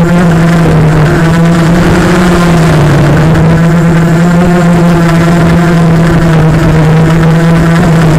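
Motors and propellers of a 250-size FPV racing quadcopter (Cobra 1960kv brushless motors) humming at a steady pitch, dipping slightly about three seconds in.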